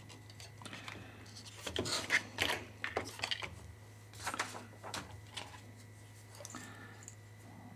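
Irregular small clicks and rattles of hand tools and a circuit board being handled on a workbench during desoldering, over a steady low hum.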